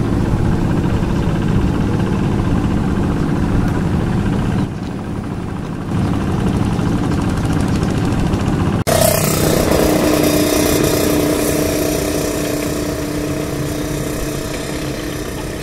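Quick two-wheel hand tractor's Kubota diesel engine running steadily as the tractor works through wet paddy soil. About nine seconds in, the sound changes abruptly to a closer, brighter running with a steady hum, which then slowly fades.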